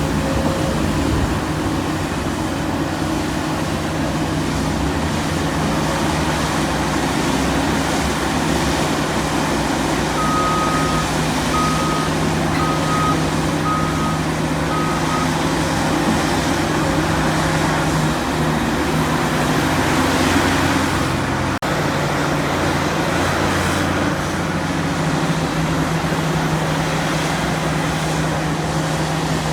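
Heavy diesel earthmoving machinery running steadily. About ten seconds in, a reversing alarm beeps five times, about a second apart, as a machine backs up.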